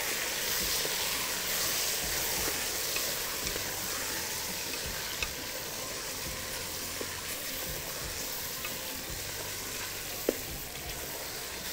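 Chicken pieces frying in an aluminium pot: a steady sizzle while a wooden spoon stirs them, with a few light ticks of the spoon against the pot and one sharper tap about ten seconds in.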